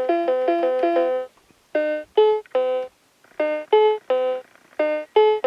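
Cheap electronic keyboard playing single notes, one at a time: a quick run of short notes, then a three-note figure repeated three times. Only one key sounds at once, as the keyboard won't play two keys at the same time.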